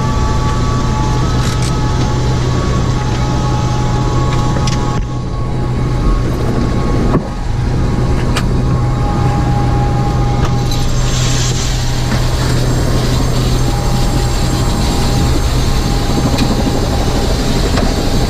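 AS350 A-Star helicopter's turbine engine and rotor running, heard from inside the cabin: a steady low drone under a steady high whine. A few light clicks come through over it.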